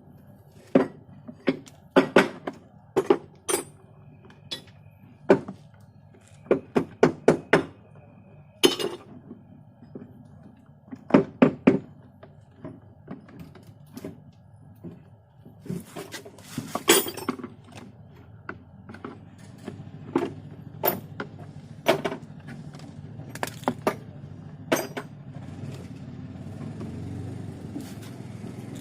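Hard objects being handled: irregular sharp knocks and clinks, some in quick runs of several, over a low steady background that grows a little louder near the end.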